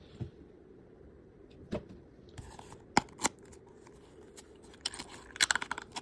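Packaging being opened and handled by hand: a few separate sharp clicks and taps, then a quick flurry of clicking and rustling near the end.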